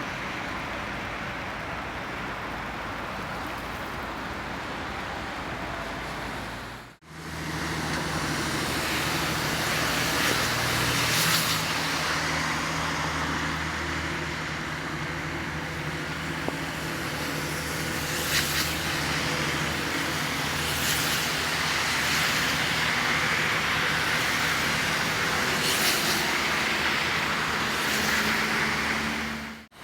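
City traffic noise with a steady engine hum. The sound breaks off sharply about seven seconds in, then resumes with a low droning engine and a few vehicles swishing past.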